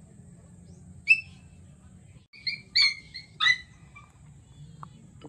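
Short, high-pitched animal calls: one chirp about a second in, then a quick run of about four more a second later, the last one falling in pitch.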